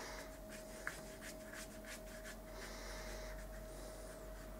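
Faint scratchy strokes of a small paintbrush flicked up and down across watercolour paper in quick vertical strokes, with a small click about a second in.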